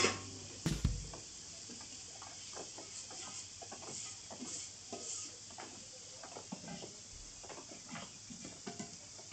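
Pieces of pork offal sizzling on a flat iron griddle, with a faint steady hiss and many small scrapes and taps of a metal utensil as they are pushed and turned. A sharp clack comes just under a second in.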